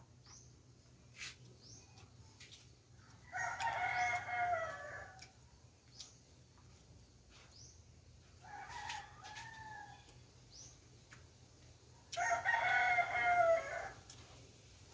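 A rooster crowing three times, each crow lasting a second and a half to two seconds, a few seconds apart.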